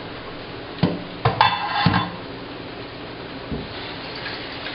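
A metal cooking pot being handled and set down at the sink, with several clanks and knocks between one and two seconds in and one more knock near the end.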